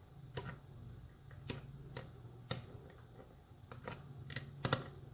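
Small irregular metallic clicks and taps of a hook pick probing the pins of a pin-tumbler challenge lock under tension, about seven in all, the loudest near the end, over a faint steady low hum.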